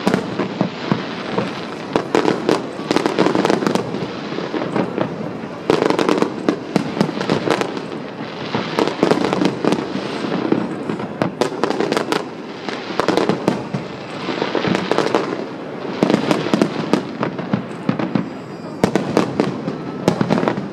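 Aerial fireworks display going off continuously: sharp bangs in repeated clusters of rapid reports, with dense crackling in between.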